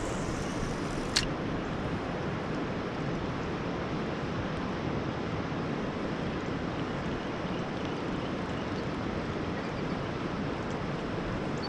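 Steady rushing of river water, with a single sharp click about a second in.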